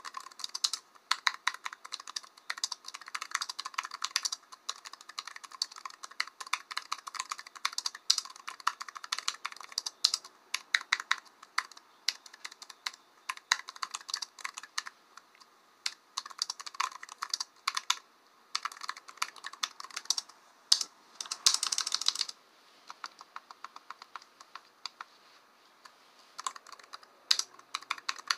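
Typing on a computer keyboard: quick runs of sharp key clicks broken by short pauses, with a lull of a few seconds about three-quarters through.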